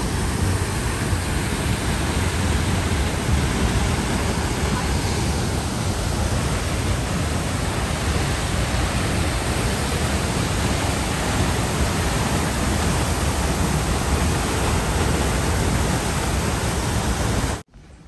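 Loud, steady rushing noise with no pitch or rhythm, heaviest in the low end, cutting off suddenly near the end.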